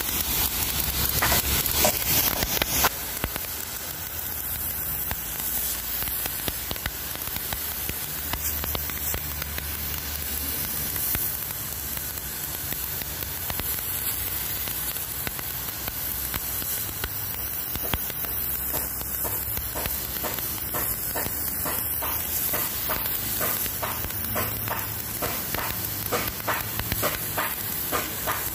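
Steady hiss of a water jet from a garden-hose spray nozzle striking wet concrete, scouring off algae and grime, with water spattering off the surface.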